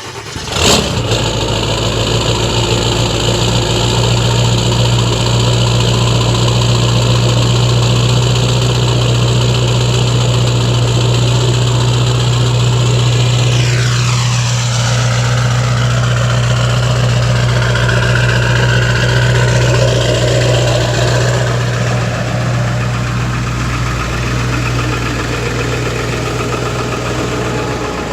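Ford F350 pickup's engine idling steadily just after starting. About halfway through, a high-pitched part of the sound sweeps down and fades while the low engine drone carries on.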